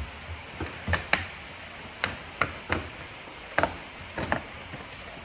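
Irregular sharp clicks and knocks of hand tools and parts being worked loose as a KTM 65 dirt bike is taken apart, about eight in five seconds.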